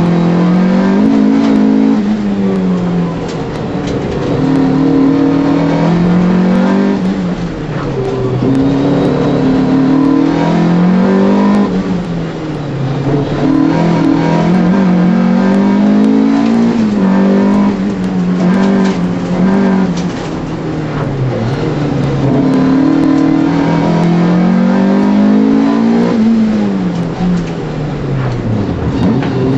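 VW Polo 6N 1.4 16V's four-cylinder petrol engine heard from inside the cabin on an autoslalom run, revving up and dropping back again and again as the car accelerates, lifts off and shifts, with a deep fall in revs near the end.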